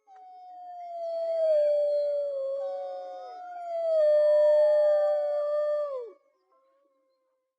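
Several wolves howling together: one long, low howl slowly falling in pitch, swelling twice over about six seconds, with higher howls overlapping it, then all stop.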